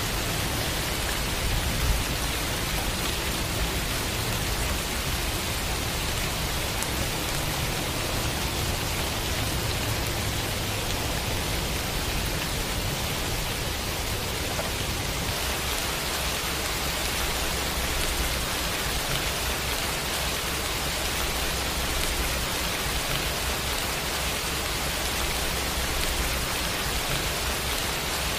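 Heavy rain pouring steadily, a dense, even hiss that does not let up.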